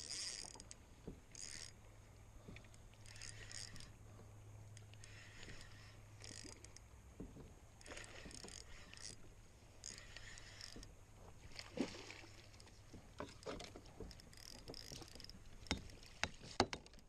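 Water splashing and lapping at a kayak in short bursts every second or two, with scattered knocks and clicks of rod, reel and gear handling. A low steady hum runs through the first half.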